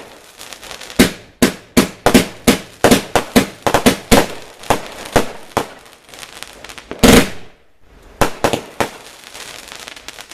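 A 45-shot firework cake (barrage) firing: a rapid run of sharp bangs, a few a second, with one bigger bang about seven seconds in followed by a brief lull before the shots resume.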